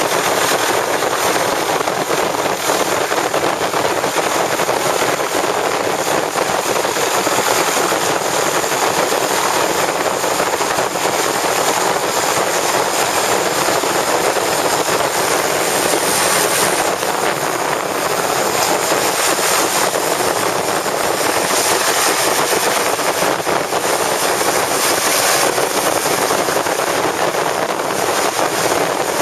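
Motorboat under way: a steady, even rush of engine and water noise.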